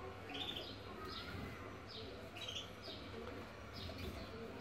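Small caged finches chirping: a series of short, high chirps, about one or two a second.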